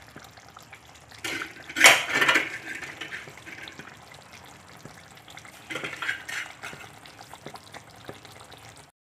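Fish curry bubbling and simmering in an iron kadai, with a low crackle throughout and two louder, sharper bursts of noise, about two seconds in and again about six seconds in.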